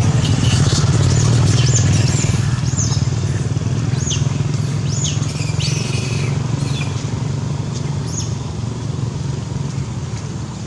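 A motor vehicle engine running with a steady low hum that slowly fades. A string of short, high chirping calls sounds over it during the first eight seconds or so.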